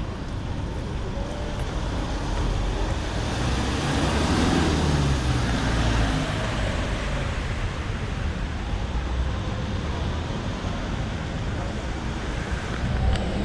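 City street traffic: steady road noise, with a vehicle passing close by about four to six seconds in.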